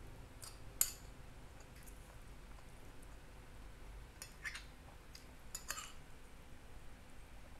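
Metal spoon clinking and scraping against a glass plate of rice, in a few short, sharp clicks: the loudest about a second in, then small clusters around four and a half and six seconds in.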